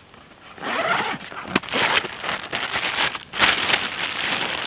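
A clear plastic bag crinkling as hands handle it and pull it out of a backpack, starting about half a second in.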